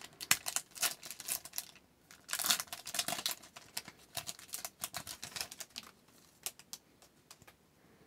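Hockey card pack's crimped plastic wrapper being torn open and the cards slid out: many quick crinkles and clicks, with a denser burst about two and a half seconds in, thinning to scattered light ticks and falling quiet near the end.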